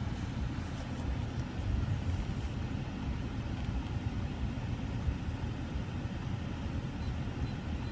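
Low, steady rumble of an Audi A8 heard from inside the cabin as the car is put into reverse and backs up slowly.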